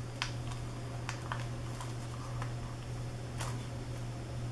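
A few faint, sparse clicks and ticks of fingers prying at the Samsung Series 9 ultrabook's lithium-polymer battery pack to pull it free, over a steady low hum.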